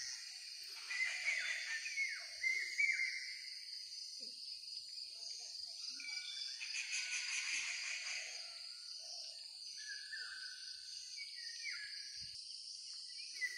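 Insects keeping up a steady high drone in a sal forest, with birds calling over it in short chirps that slide in pitch, a cluster in the first few seconds and a few more near the end.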